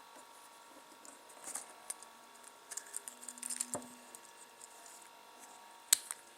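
Small plastic building bricks being handled: scattered light clicks and rattles, with a soft knock about halfway through and a sharper click near the end.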